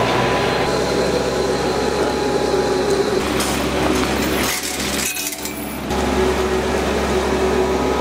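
Bobcat compact track loader running with a steady diesel engine hum and metallic clanks and rattles. The sound drops briefly about halfway through.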